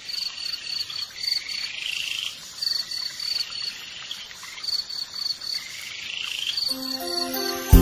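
Insects chirping in short, evenly pulsed trills that repeat every second or two, with lower gliding calls between them. Soft musical notes come in near the end.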